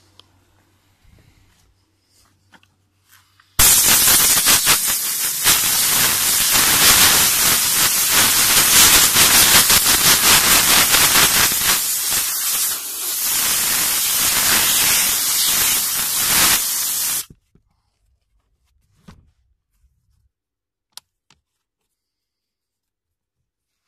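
Handheld steam cleaner gun releasing a jet of steam onto car interior trim: a loud, steady hiss that starts abruptly about three and a half seconds in and cuts off suddenly some fourteen seconds later.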